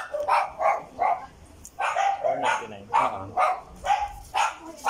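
A dog barking over and over, short barks at about three a second.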